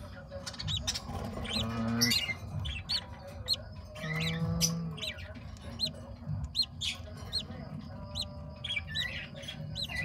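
Lovebirds chirping: short, high chirps repeating about twice a second over a low steady hum.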